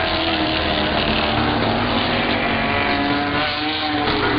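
Street stock race cars' engines running around the oval track, several at once, with their pitch shifting as the cars pass.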